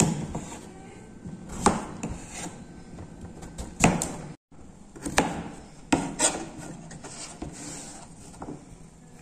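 Kitchen knife chopping raw potato, then chayote, against a plastic cutting board: single sharp knocks of the blade striking the board, irregular and roughly a second apart. The sound drops out completely for a moment about halfway through.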